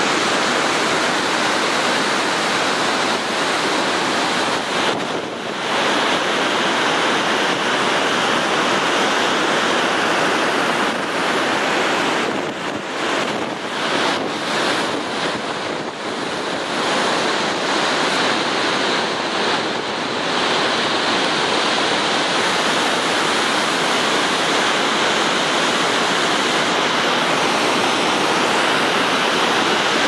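Dettifoss waterfall, a massive flow of glacial river water, rushing and crashing into its gorge in a loud, unbroken roar, dipping briefly a few times around the middle.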